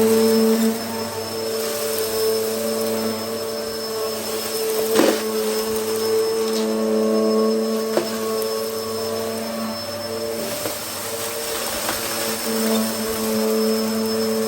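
Hoover Hurricane vacuum cleaner running steadily on its intensive-clean setting, its 2000-watt motor giving a steady whine with a few sharp clicks, about every three seconds.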